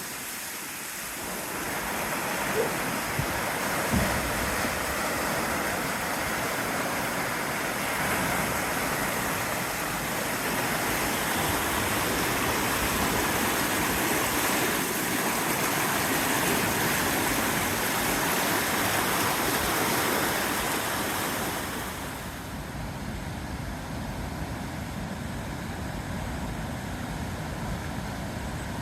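Swollen river in spate from snowmelt, its water rushing steadily. Near the end the rushing grows quieter and duller.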